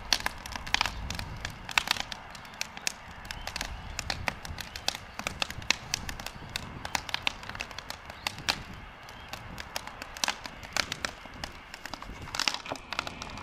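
Wood fire burning hard in a metal drum fire pit, crackling with many irregular sharp pops and snaps.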